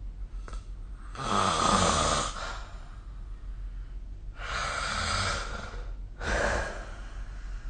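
A sleeping person snoring: three noisy breaths, the first, about a second in, the loudest and longest, with a low buzz in it.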